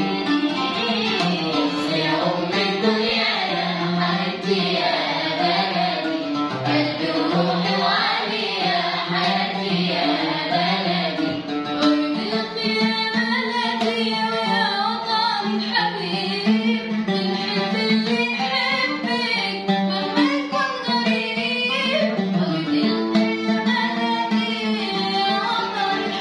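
A children's choir singing an Arabic song in unison over instrumental accompaniment, the melody rising and falling continuously.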